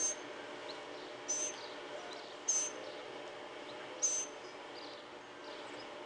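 A bird chirping: three short, high calls about a second and a half apart.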